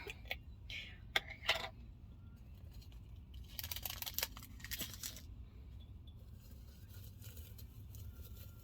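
Sushi seaweed package being handled: a few light clicks, then a rustling, crinkling stretch lasting about a second and a half.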